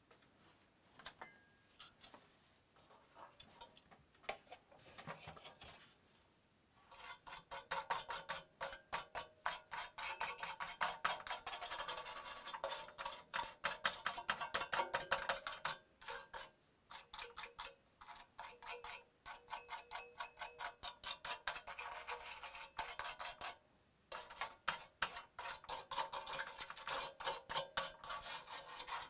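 Quick back-and-forth scrubbing strokes, several a second, on a PS4's metal shield plate as dust and old thermal paste are cleaned off it. A few faint scrapes come first; the steady scrubbing starts about seven seconds in and stops briefly a few times.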